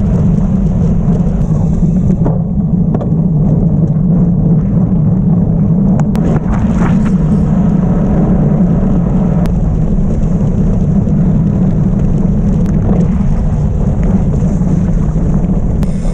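Loud, steady wind buffeting on a bike-mounted camera's microphone as a gravel bike is ridden hard, mixed with the rush of the tyres over asphalt and dirt. A few brief clicks come through.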